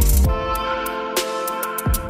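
Background music with a beat and held tones.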